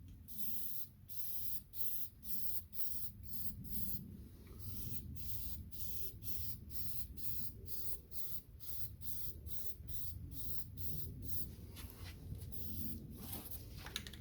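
Aerosol primer spray can hissing in short, broken spurts, about two or three a second, instead of a steady spray: the can is sputtering and not laying down a proper coat of primer.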